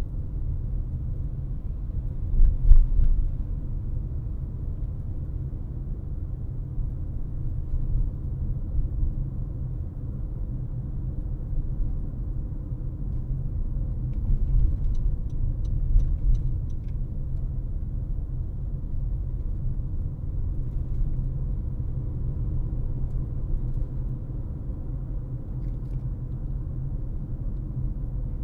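Car driving, a steady low rumble of tyres and engine, with a louder thump about three seconds in.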